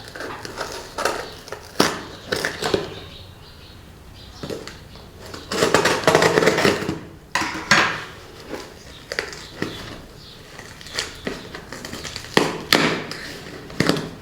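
A cardboard box and its brown paper packing being opened and handled: irregular rustling with sharp clicks and knocks, and a longer stretch of rustling about six seconds in.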